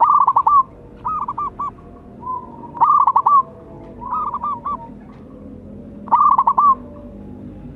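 Zebra dove calling: short phrases of quick, soft cooing notes. Louder phrases come about every three seconds, with fainter phrases in between.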